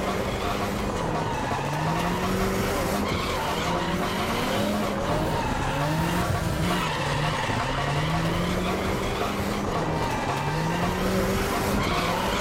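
Drift-car sound effect: a car engine revving in repeated rising sweeps, a new one every second or two, with tyres screeching under the revs.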